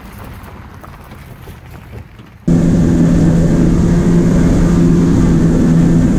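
A car towing a jet ski trailer rolls past on a gravel lane, a quiet low rumble. About two and a half seconds in it cuts sharply to a jet ski's engine running fast across open water, a loud, steady drone.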